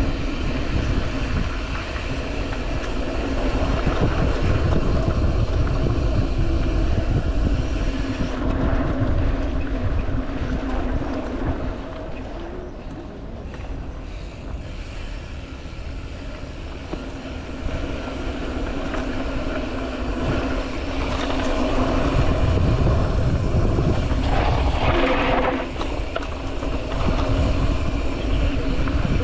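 Mountain bike riding over a dirt trail: wind buffeting the microphone in a low rumble that swells and eases, with the bike's tyres and frame rattling underneath.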